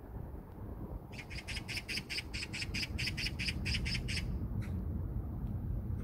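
Steady road and wind noise of a car driving. About a second in, a rapid, even run of about twenty short high-pitched chirps lasts some three seconds.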